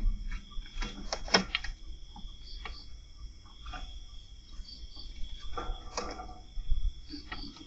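Crickets chirping steadily at night, with scattered sharp clicks and rustles over a low rumble. The loudest clicks come about a second in and again around six seconds.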